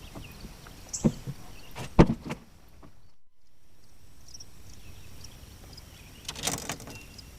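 A few sharp knocks, the loudest about two seconds in, and a short scraping rattle just past six seconds.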